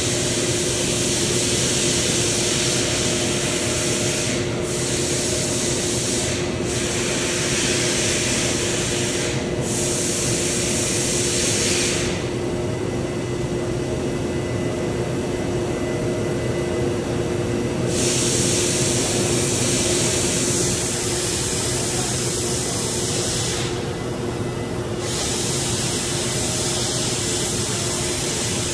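Northwood 255-FAMT CNC router running, with a steady hum and a loud hiss over it. The hiss cuts out briefly several times and stops for about six seconds in the middle.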